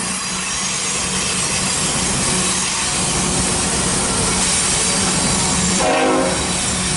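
Diesel freight locomotives in dynamic braking on a downgrade: a steady whir with a constant low hum, and a short higher tone about six seconds in.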